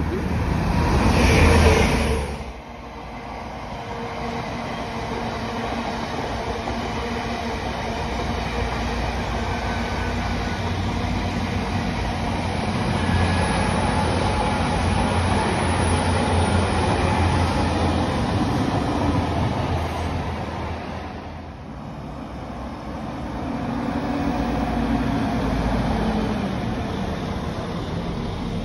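Trains passing at speed, wheels on rail. A loud burst of train noise cuts off suddenly about two seconds in. Then comes the long, even rush and rumble of an LNER Azuma's carriages running past, and a few seconds before the end a Northern passenger train passes with a low hum.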